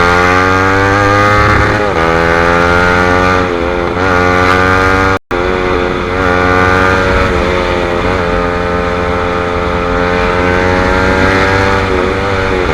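Suzuki GSX-R150's single-cylinder engine through an R9 GP SS racing exhaust with the dB killer removed, riding and pulling up through the revs. The pitch dips and climbs again several times as it shifts gears. The sound cuts out for an instant about five seconds in.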